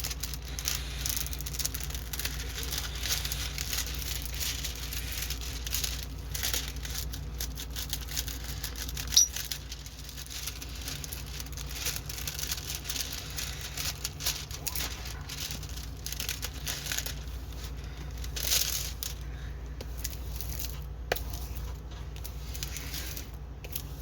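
Plastic packaging of a diamond painting kit crinkling and rustling as it is handled, with scattered small clicks and a sharp tap about nine seconds in.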